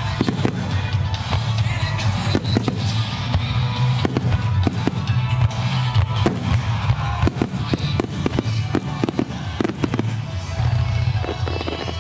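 Starmine fireworks: many aerial shells bursting in quick succession, sharp bangs every fraction of a second. The music the display is set to plays over them.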